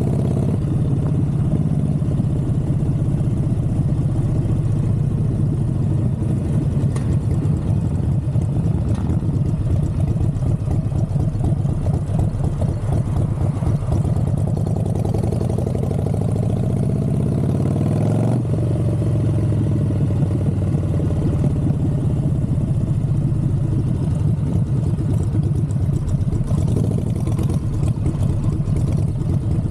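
Harley-Davidson Fat Boy's V-twin engine running steadily under way. Its note rises as it accelerates, then drops suddenly about 18 seconds in, as at a gear change, before settling back to a steady run.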